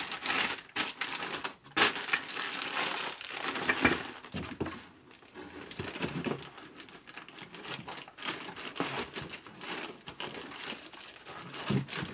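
Plastic shipping bags crinkling and rustling as they are handled and rummaged through in a box, in irregular bursts that are busiest in the first few seconds.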